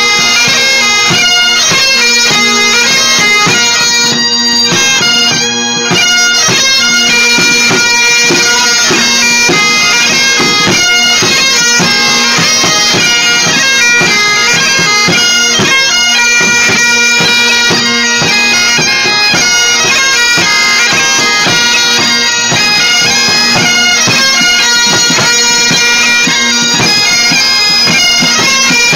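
Great Highland bagpipe playing a tune over its steady drones, with a bass drum and side drum beating time.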